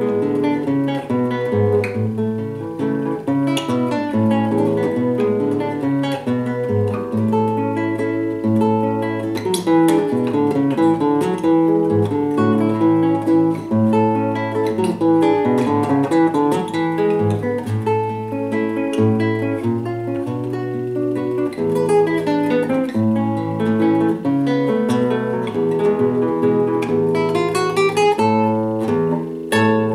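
Nylon-string classical guitar played solo, fingerpicked: variations on a gato, an Argentine folk dance. Near the end a quick rising run leads into a struck chord.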